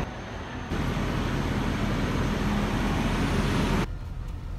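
Steady road noise of a moving vehicle, which cuts off abruptly near the end.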